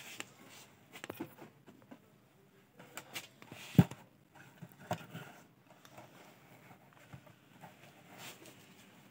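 Handling noise from a folding phone screen magnifier being unfolded and set up on a table: scattered clicks and light knocks, the loudest a sharp knock a little under four seconds in.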